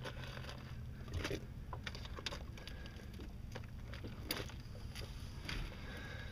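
Scattered light knocks and taps against a boat's deck, over a low steady rumble.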